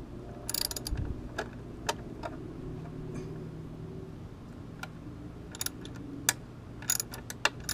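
Scattered metallic clicks of a socket ratchet and extension turning a motorcycle belly-pan bolt in short strokes, spaced irregularly, over a faint steady low hum.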